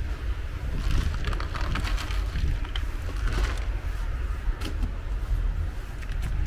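Dry cat kibble poured into a plastic food tray: a rattling patter of small pieces for about two and a half seconds, starting about a second in, with a few more clicks a little later. A steady low rumble runs underneath.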